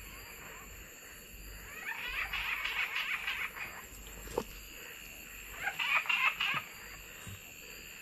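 Two bouts of rapid, repeated animal calls from the night rainforest, the first lasting about two seconds and the second about a second, over a steady high insect drone. There is a single light tap about halfway through.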